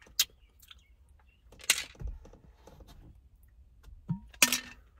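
A person drinking a protein shake from a plastic shaker bottle: a few short, separate sounds of gulping, breathing and handling the bottle, the loudest about four and a half seconds in.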